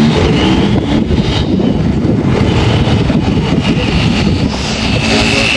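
A loud motor vehicle engine running continuously with a rough, uneven note.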